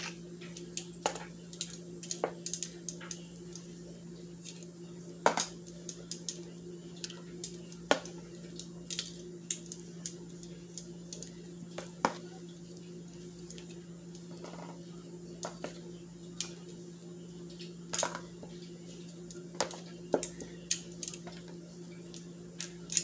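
Metal kitchen tongs clicking and scraping against a mixing bowl in irregular strokes as wet chicken pieces are turned in egg wash. A steady low hum runs underneath.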